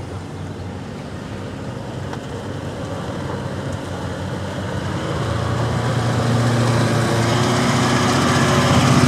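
Toyota Land Cruiser 200-series engine running at low revs as the SUV crawls down a steep dirt slope, a steady hum that grows louder as it approaches and passes close by.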